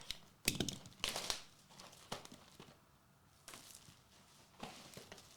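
Plastic wrapping on a trading card box or pack being crinkled and torn open, in a string of short crackling bursts.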